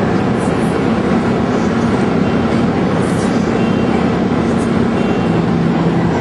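Car engine drone at motorway speed, with heavy road and wind noise; the engine pitch drops a little about five seconds in.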